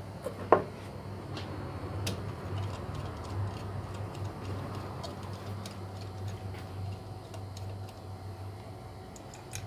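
Small clicks and taps from hand tools working on a pump motor during disassembly, with one sharp knock about half a second in, over a steady low hum.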